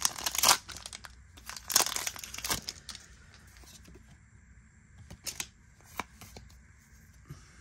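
A Pokémon booster pack's foil wrapper being torn open and crinkled, loudest in two spells in the first three seconds. After that the rustling is quieter, with a few light clicks of the cards being handled.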